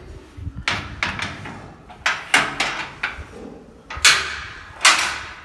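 Metal clangs from a steel grill gate being worked: about six sharp bangs, each ringing briefly. The two loudest come in the last second and a half.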